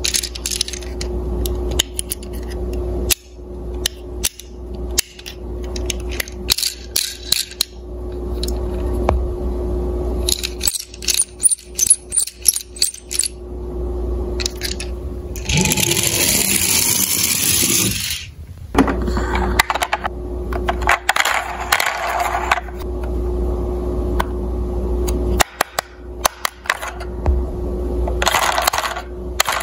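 Clicks, taps and light clatter of toy police cars, small diecast metal and plastic models, being handled and turned over in the fingers, with a longer scraping rustle about halfway through and a steady low hum underneath.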